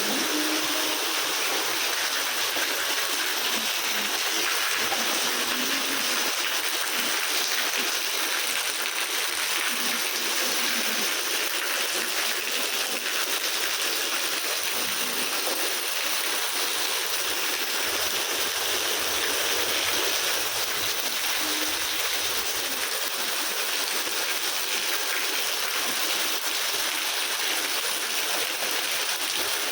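Rain falling steadily, an even hiss of water with no break.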